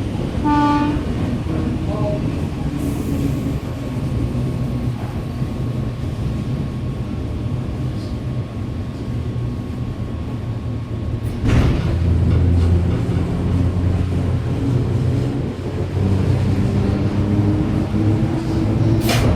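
Red Rattler electric suburban train running, heard on board: a steady low rumble of wheels and motors on the track, getting suddenly louder about eleven seconds in, with a sharp click near the end.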